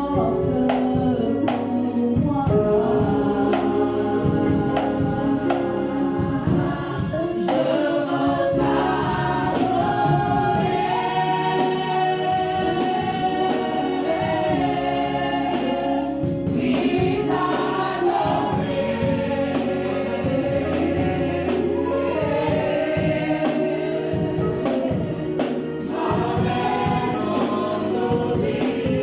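Gospel choir singing with band accompaniment and percussion.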